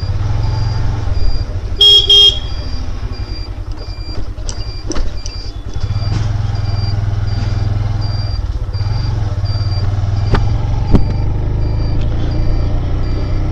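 Road noise heard through a helmet-mounted microphone on a moving motorcycle: a steady low rumble of engine and wind. A short, loud vehicle horn blast sounds about two seconds in.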